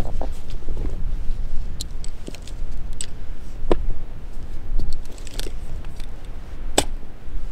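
Backpack and gear being handled: rustling with a few sharp clicks and knocks, the loudest near the end, over a steady low rumble of wind on the microphone.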